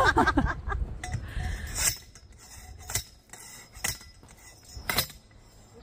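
Sharp metallic clanks, about one a second, from a hand stake driver pounding a pepper-plant stake into the ground.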